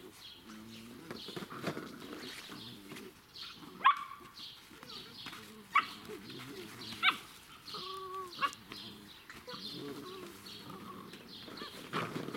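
Seven-week-old Irish Setter puppies playing, giving a handful of short, sharp yelps (the loudest about four seconds in) and a short whine about eight seconds in, over low wavering puppy noises.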